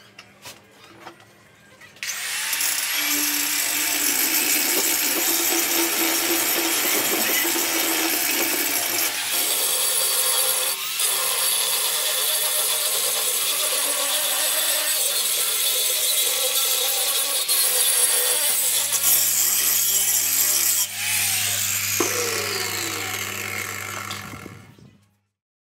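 Angle grinder with an abrasive disc grinding the rusty steel teeth of an old rake to sharpen them. It starts about two seconds in, runs steadily, and dies away near the end.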